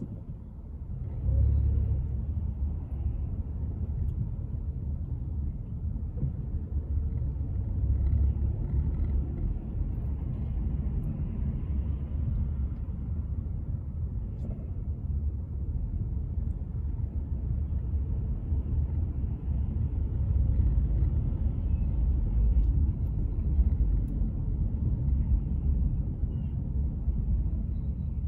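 Low, steady rumble of a car's engine and tyres heard from inside the moving car. It grows louder about a second in and holds steady after that.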